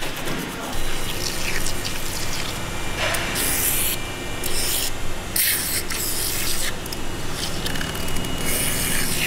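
An aerosol can of foaming cleaner is sprayed onto a bare engine block in several short hissing bursts. It follows a couple of seconds of a gloved hand rubbing the metal.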